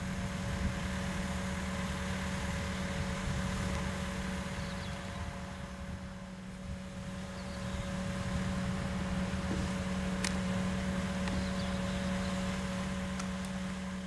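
Diesel engine of a Manitou MRT2145 telehandler running steadily with a constant hum while its boom is raised and extended, easing off a little about halfway through and picking up again.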